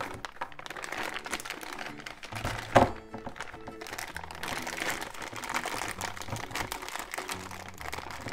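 Plastic shrink-wrap crinkling as Play-Doh cans are worked out of their wrapped sleeve, with one sharp knock about three seconds in, all over light background music.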